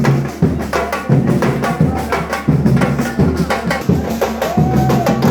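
A group of street drummers playing a steady, driving rhythm, with deep bass-drum strokes and sharper drum hits on top.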